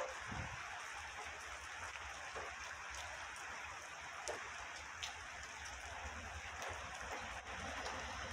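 Light rain falling, a quiet steady hiss with a few sharp drips. A faint low rumble from the approaching train grows near the end.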